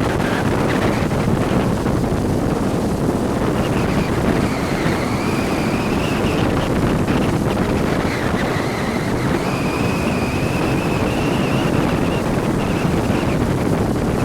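Yamaha jet ski under way: wind buffeting the microphone over the rush of water. From about four seconds in, a faint high engine whine rises and falls in pitch.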